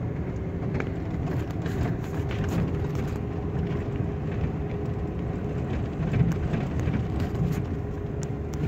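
4x4 pickup truck driving along a rough dirt track: a steady engine and tyre rumble with a faint steady hum and scattered light knocks and rattles from the bumpy ground.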